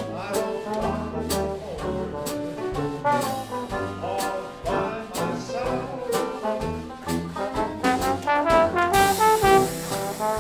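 Traditional Dixieland jazz band playing, with trombone and trumpet over a steady beat; the ensemble gets louder near the end.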